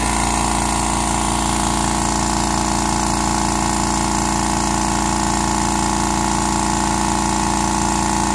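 California Air Tools 2010A 1 hp oil-free dual-piston air compressor running steadily, filling its 2-gallon aluminum tank as the pressure climbs toward its 120 psi cut-out. A steady hum with a fast, even pulse.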